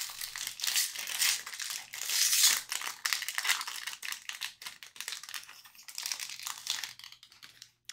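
Hockey trading cards and their packaging being handled: papery rustling and crinkling with many small clicks as cards slide past one another, easing off toward the end.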